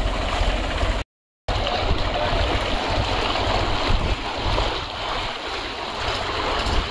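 Tractor wading through floodwater: water churning and splashing around the wheels, with the engine running low underneath. The sound cuts out for about half a second about a second in.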